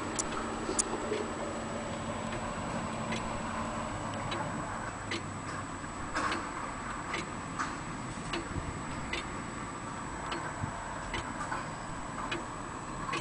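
Antique longcase (grandfather) clock ticking steadily at roughly one tick a second, some ticks louder than others.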